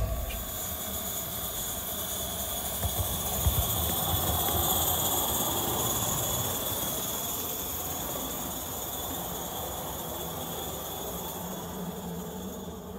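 Live-steam Accucraft L&B 'Lyn' 2-4-2 tank model locomotive giving off a continuous steam hiss, loudest a few seconds in and slowly fading toward the end.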